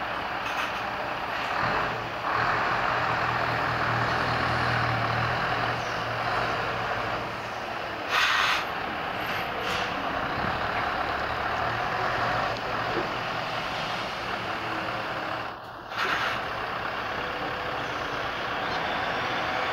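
Articulated lorry's diesel engine running at low speed as it manoeuvres, with short hisses of air from its brakes about eight seconds in and again near the end.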